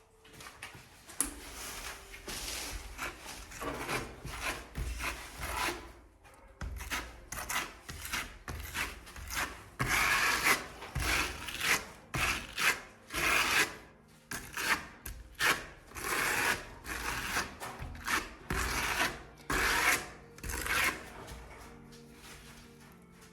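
A steel trowel spreading and scraping decorative plaster over a stencil, in repeated rasping strokes about one a second that stop about 21 seconds in.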